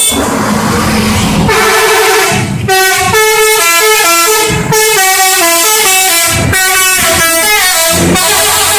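Telolet horn of an Abiyan Trans bus, a multi-tone musical air horn, playing a long tune. The notes step up and down several times a second in phrases with short breaks, starting about a second and a half in and stopping near the end.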